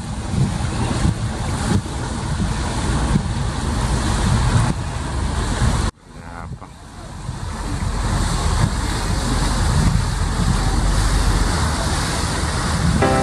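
Wind buffeting the microphone over the sound of sea waves, a dense rumbling rush. It cuts out abruptly about six seconds in and swells back up over the next couple of seconds.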